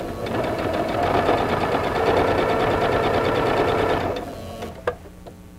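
Singer 7466 computerized sewing machine stitching a straight-stitch seam: the motor and needle run fast and steady, pick up speed about a second in, and stop after about four seconds. A single sharp click follows near the end.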